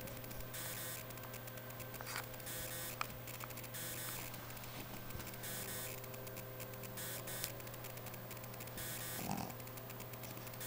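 Camcorder's own running noise: a steady hum under a hiss that comes and goes. A few faint clicks fall in the first half, and there is a short soft noise about nine seconds in.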